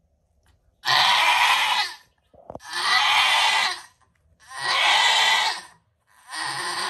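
Nigerian Dwarf doe in labor bleating loudly: four long, strained cries in quick succession, each lasting about a second.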